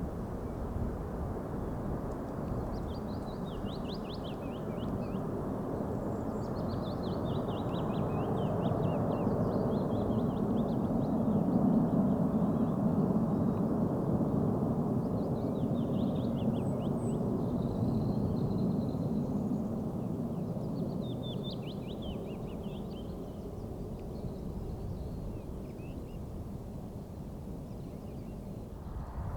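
Rumble of a Boeing 747-400 freighter's four jet engines, growing louder to a peak about halfway through and then fading away. Small birds chirp over it throughout.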